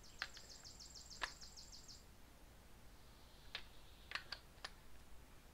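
Hand ratchet clicking faintly and quickly, about eight clicks a second for the first two seconds, as it runs down the bolts of the Saturn overdrive housing; then a few single clicks.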